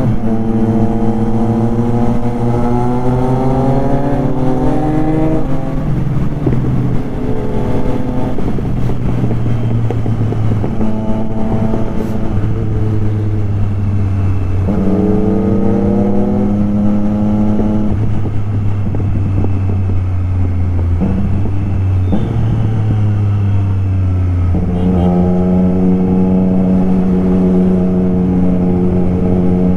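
Triumph Street Triple RS's inline three-cylinder engine running under way, its pitch climbing over a few seconds and then dropping several times, and holding steadier near the end.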